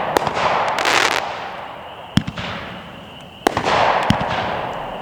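LIDU Coconut Symphony 9-shot, 200-gram consumer firework cake firing: sharp bangs a second or two apart, each followed by a hiss that fades as the shell's break spreads. A dense crackling burst comes about a second in.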